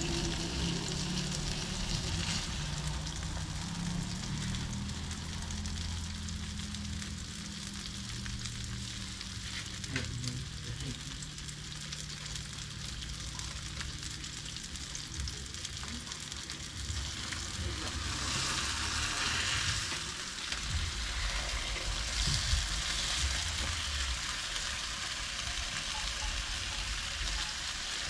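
Thick Murray cod fillets sizzling in oil on a George Foreman electric griddle, a steady frying hiss that swells for a few seconds about two thirds of the way through.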